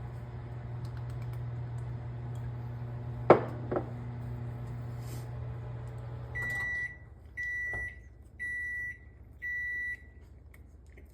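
Microwave oven running with a steady hum and a sharp click partway through. The hum stops about six seconds in, and the oven gives four beeps about a second apart, the signal that its cooking cycle has finished.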